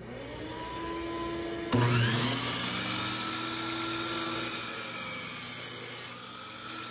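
Shop vacuum starting up and running, then about two seconds in a DeWalt miter saw motor starts suddenly with a rising whine as it comes up to full speed. The spinning blade is lowered through a wooden board to make a cut.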